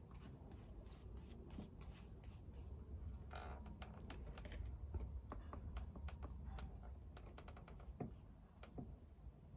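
Faint light clicks and taps, scattered unevenly and thickest in the middle, over a steady low rumble.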